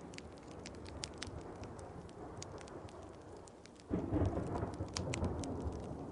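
Wood fire crackling over steady rain, with a sudden low rumble of thunder breaking in about four seconds in and rolling off over a second or two.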